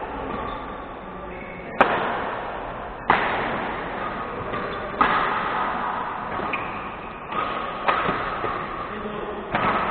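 Badminton rackets hitting a shuttlecock in a rally: five sharp hits one to three seconds apart, each ringing out in the hall's echo.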